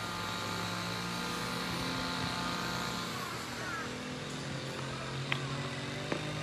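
A steady low engine hum with a slight shift in pitch about halfway, and two sharp knocks near the end.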